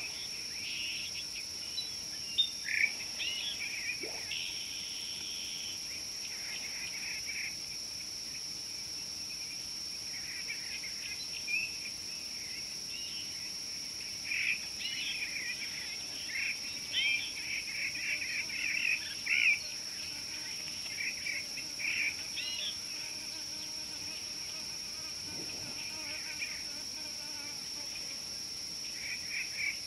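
A steady, high insect drone runs throughout, with birds calling over it in short chirping phrases, now and then, and most densely through the middle.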